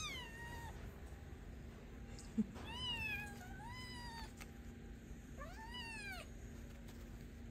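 Young tabby kitten meowing: four high-pitched mews, the middle two back to back, with a short tap just before them.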